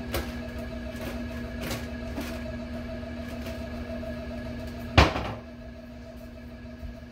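A steady mechanical hum with one loud thump about five seconds in, typical of tree-removal equipment running while a cut piece lands or knocks against something.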